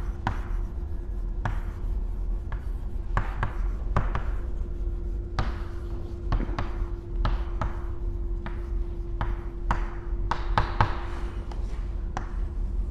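Chalk writing on a chalkboard: a run of short, irregular taps and scratches as letters are stroked out, over a steady hum.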